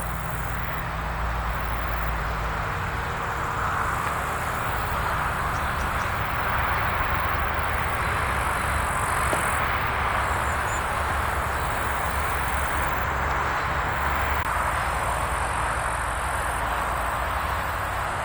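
Wind blowing through forest trees, a steady rushing hiss that swells a little midway, with a low rumble of wind buffeting the microphone.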